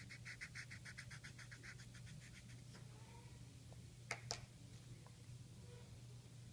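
Felt-tip marker scribbling back and forth on paper while colouring in, faint and fast at about six or seven strokes a second, stopping about three seconds in. Two sharp clicks follow about four seconds in.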